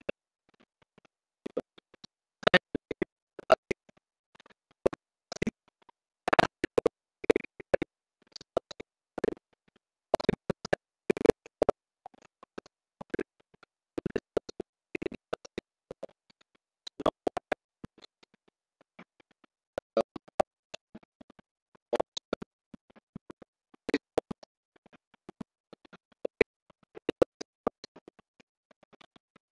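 Irregular sharp clicks and taps, often in quick clusters of a few at a time, with short quiet gaps between.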